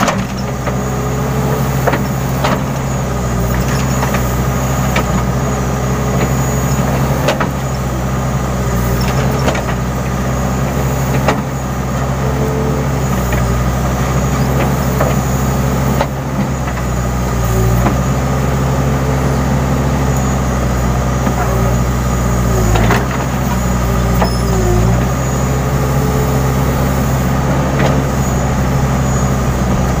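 Diesel engine of a Case N Series backhoe loader running steadily under load as the backhoe arm digs into a dirt bank, heard from the operator's seat, with scattered short knocks and clanks from the arm and bucket.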